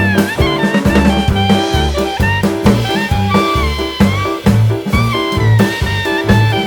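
Upbeat jazzy background music with a steady drum beat, bass and a horn-like melody.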